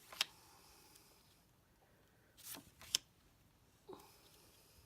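Stiff paper pocket cards being handled and laid down one by one: a few short crisp clicks and rustles of card, the sharpest near the start and about three seconds in.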